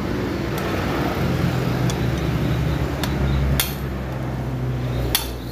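A handful of sharp metallic taps and clinks, steel tool against a motorcycle cylinder head, spaced irregularly with the loudest two in the second half, over a steady low drone.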